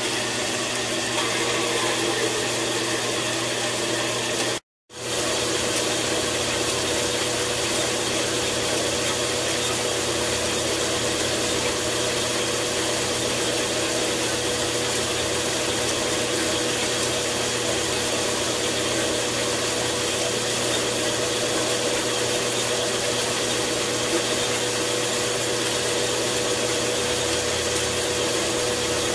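Horizontal metal-cutting bandsaw running steadily, its blade sawing through a brass round bar: a constant motor hum with a steady tone and blade hiss. The sound cuts out completely for a moment just under five seconds in, then resumes unchanged.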